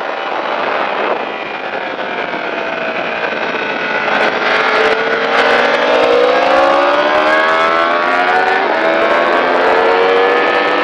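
Sport motorcycle engine heard onboard, accelerating hard out of a corner with its pitch climbing steadily. The pitch drops at an upshift about two seconds before the end, then climbs again, over steady wind rush.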